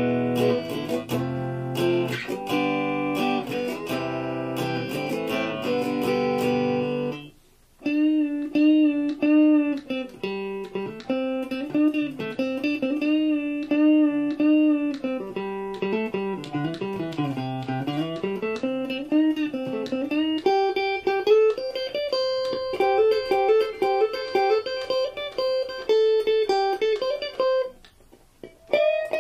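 Stratocaster-type electric guitar playing: strummed chords for about seven seconds, a brief stop, then a single-note melody with string bends and vibrato that moves higher in its second half, broken by a short pause near the end.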